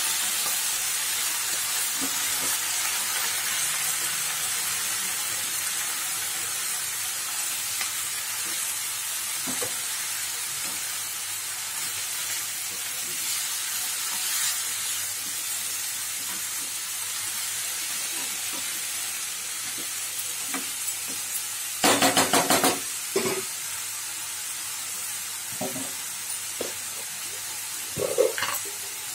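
Chopped mustard greens sizzling in a hot frying pan as they are stirred with a wooden spatula, a steady hiss that eases slightly. About two-thirds of the way in comes a quick run of sharp knocks, with a few softer clicks and a short clatter near the end.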